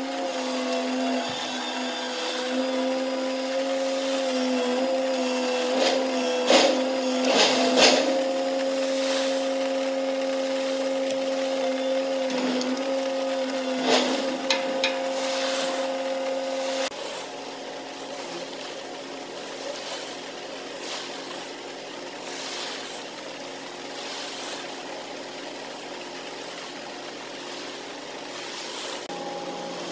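Gravel ship's crane machinery running with a steady mechanical hum, broken by a few sharp clanks around six to eight seconds in and again near fourteen seconds. About seventeen seconds in the sound cuts abruptly to a quieter, steady engine hum.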